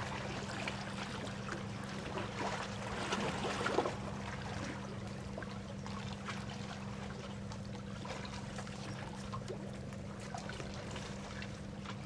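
Steady low hum of an idling boat engine, with water lapping and trickling against shore rocks.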